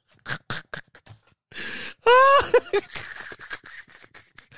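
A man laughing hard: short breathy bursts, then a high squealing whoop about two seconds in, then rapid wheezy pulses.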